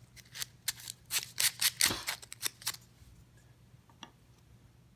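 Sandpaper rubbed by hand over small scroll-sawn wooden letters: a run of short, quick scratchy strokes, about three or four a second, that stops about three seconds in, with a faint stroke or two later.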